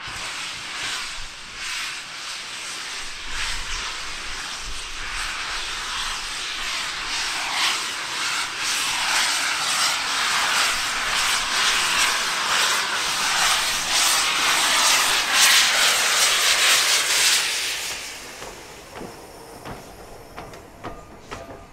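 Steam locomotive running past with steam blasting from its open cylinder drain cocks: a loud hissing rush broken by sharp pulses, building over about seventeen seconds and then dropping away.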